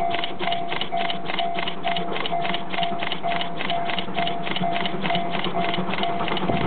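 Japanese railway level crossing warning alarm ringing steadily: quick metallic strikes about four a second over a clear tone pulsing on and off about twice a second, with a low rumble underneath.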